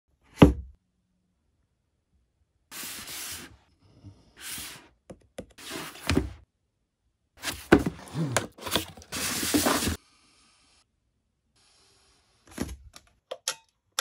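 A cardboard box knocks down once onto a tabletop, then a utility knife slices along the box in several scraping strokes, the longest about a second. A few small handling clicks follow near the end.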